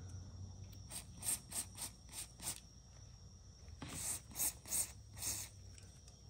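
Aerosol cleaner spraying in short hissing spurts into the camshaft sensor housing to wash out leaked oil: a run of about six quick spurts, then four longer ones a couple of seconds later.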